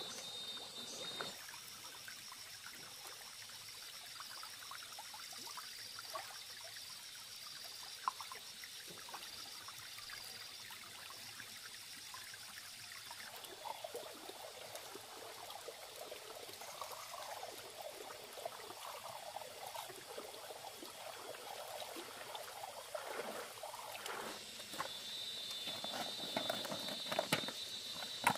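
Water sloshing and trickling as hands grope through a shallow, muddy streambed for freshwater shellfish. Near the end, wet shells clack together and water drips off them.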